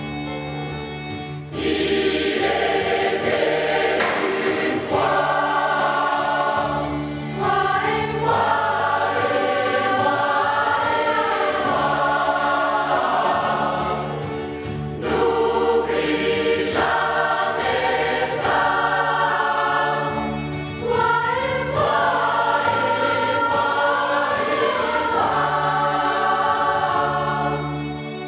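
Mixed choir of men and women singing in long phrases over a steady instrumental accompaniment. The voices come in about a second and a half in.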